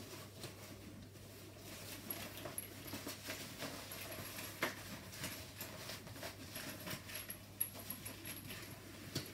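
Bugaboo Donkey 3 seat fabric rustling as it is handled, with scattered light clicks and taps from its plastic clips.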